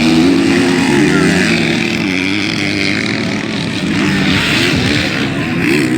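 Motocross motorcycle engines running and revving, their pitch rising and falling.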